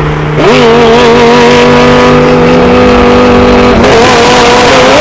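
A tuned twin-turbo supercar engine revs up sharply about half a second in and holds a loud, steady high note for about three seconds. Near the end the note gives way to a loud rush of noise.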